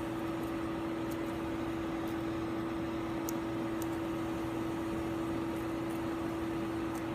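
Steady hum of running laboratory equipment: one low tone with fainter overtones over a soft hiss, at an even level. A few faint light clicks sound over it.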